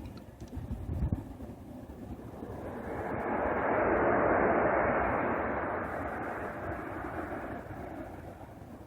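A passing vehicle: a broad rushing noise that builds over about two seconds, peaks near the middle, then slowly fades.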